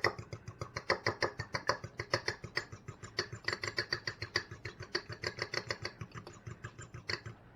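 An egg with a drop of water being beaten for an egg wash, the utensil clicking fast and evenly against the bowl, about five or six strokes a second. The beating stops shortly before the end.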